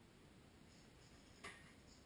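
Near silence: room tone, with one faint, sharp click about one and a half seconds in.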